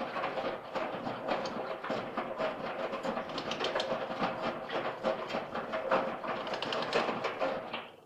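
Washing machine running a wash cycle: a steady motor hum under a dense, irregular rattling and clicking from the turning drum. It stops abruptly near the end.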